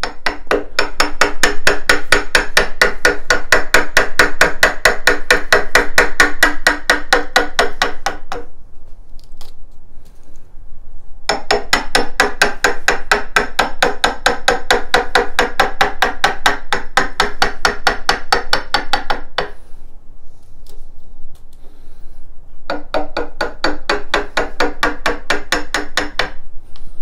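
Claw hammer tapping a plastic-handled chisel in fast, steady light strokes, several a second, paring out a hinge mortise in the edge of a wooden door. The tapping comes in three long runs with two short pauses.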